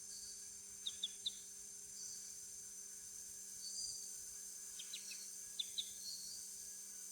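Rainforest ambience: a steady high-pitched insect drone with short bird chirps in quick clusters of two or three, about a second in and again around five seconds in. A faint steady low hum runs underneath.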